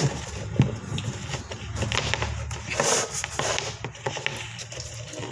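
Handling noise from a battery charger and its cable being picked up and moved about on a wooden desk: scattered light knocks, clicks and rustles.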